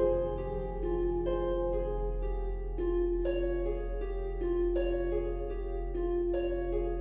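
Background music: a slow melody of plucked, harp-like notes over a low steady drone.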